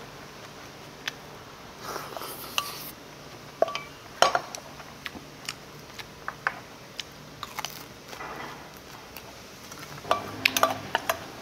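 Eating utensils clinking and tapping against dishes during a meal: a scattered series of short clicks, with a busier cluster near the end.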